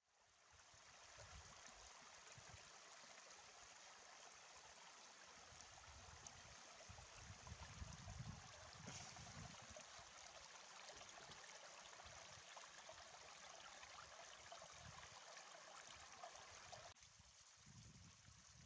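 Meltwater running and trickling down the face of a melting ice patch in many small rivulets: a steady, faint rushing hiss that fades in at the start and drops a little about 17 seconds in.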